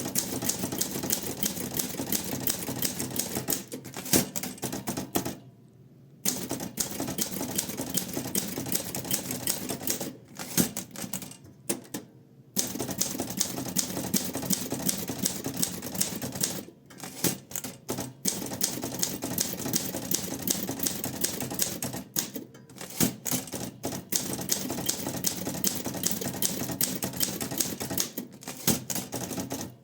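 Olympia SM8 manual portable typewriter being typed on at a quick, steady pace, a dense run of key and typebar strikes broken by a few brief pauses.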